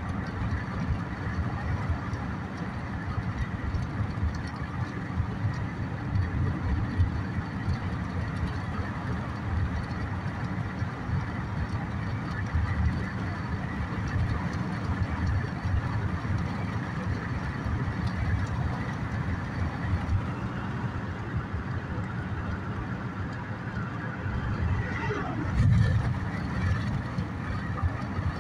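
Steady road and engine noise of a moving car, heard inside its cabin, with a brief louder swell that falls in pitch near the end.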